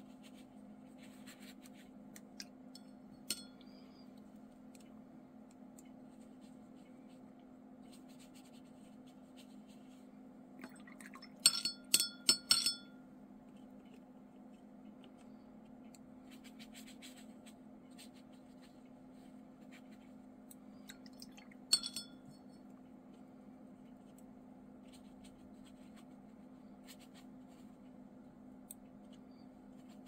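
A paintbrush clinks against a glass water jar as it is rinsed between colours. There is a quick cluster of four or five ringing clinks about twelve seconds in and a single clink near twenty-two seconds. Under it runs a low steady hum and the faint scratch of the brush on watercolour paper.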